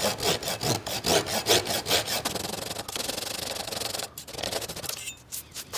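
Hand-working of walnut wood: quick back-and-forth rasping strokes, about three or four a second, merging into a steadier stretch of rubbing, with a short break about four seconds in and a few more strokes near the end.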